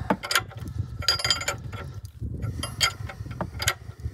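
Ratchet spanner clicking in short runs as it turns the nut on a bush-press draw bolt, pulling a new rear upper suspension bush into a Range Rover L322's rear arm. Clusters of metallic clicks come about every second.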